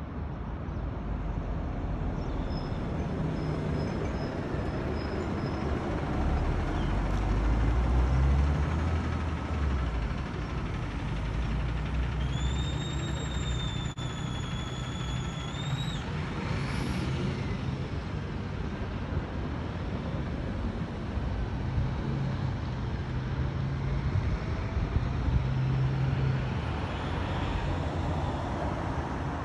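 Road traffic: vehicles passing on a multi-lane street, the loudest going by about eight seconds in. A high, steady whine runs for about four seconds midway through.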